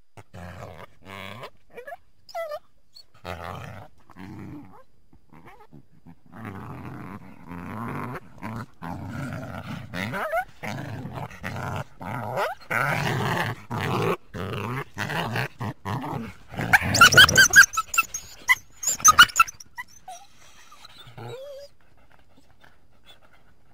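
Coyotes growling and snarling in rough, irregular bouts. Near the end they break into a loud burst of high yelps, then trail off in a few faint whines.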